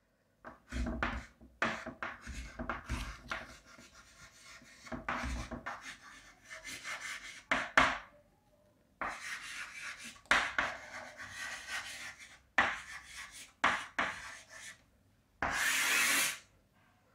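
Handwriting: a run of short, irregular scratching strokes of a writing tool on a writing surface, with a longer, louder stroke near the end.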